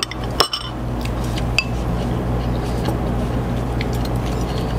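Eating utensils clinking a few times against a soup bowl, short sharp ticks with a brief ring, over a steady low hum.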